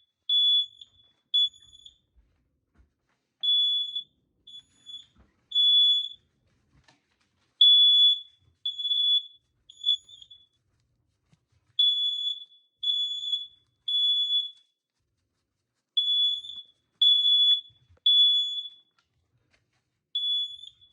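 Dual-sensor smoke alarm sounding its alarm: a high-pitched beep in groups of three, a new group about every four seconds, the standard temporal-three evacuation pattern.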